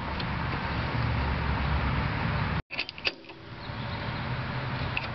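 Steady low background hum, cut short about two and a half seconds in, then a few sharp metallic clicks of a ratcheting wrench tightening the castle nut on an outer tie rod end.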